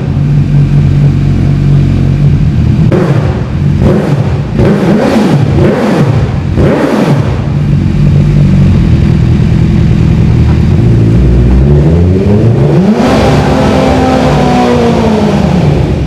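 Motorcycle engine running and being revved, its pitch rising and falling several times over a steady idle.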